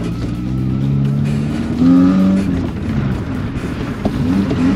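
An old Suzuki Swift's engine revving up and down as it is driven hard through a tight course, with the strongest rev about two seconds in.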